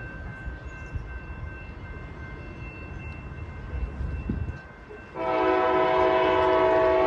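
Diesel locomotive rumbling as the train runs by. About five seconds in, a loud multi-chime air horn blast starts and is held to the end.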